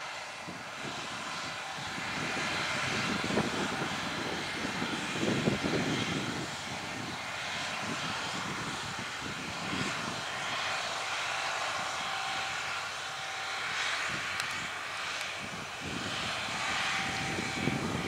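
Distant John Deere four-wheel-drive tractor engine droning steadily under load as it pulls an air seeder, with gusty low rumbling coming and going.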